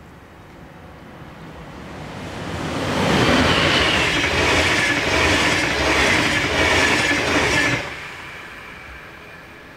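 Deutsche Bahn Intercity 2 double-deck train with a class 146 electric locomotive passing close at speed: wheel-on-rail rumble swells from about two seconds in, stays loud for about five seconds, then drops off suddenly near eight seconds as the train clears, leaving a fading rumble.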